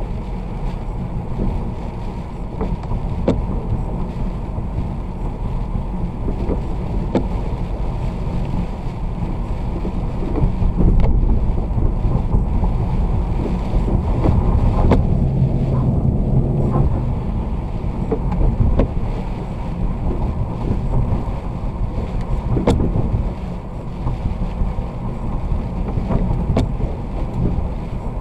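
Steady low rumble of wind and road noise from a moving vehicle in the rain, with scattered short sharp ticks.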